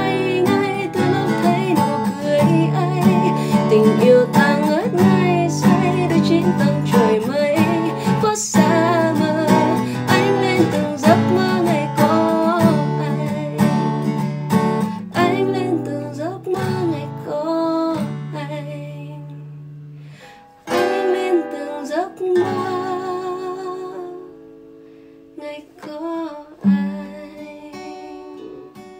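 A woman singing a pop ballad in Vietnamese while strumming an acoustic guitar. Over the last third it thins and goes quieter, into sparser, softer sung phrases over lighter guitar.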